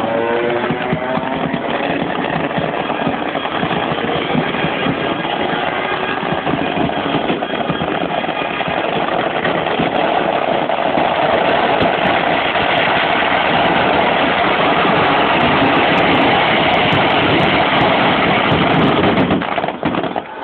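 MotoGP racing motorcycle doing a burnout: the revs climb in the first second, then the engine is held high and steady while the spinning rear tyre pours out smoke. There is a brief dip near the end, and a few sharp cracks come in the last few seconds.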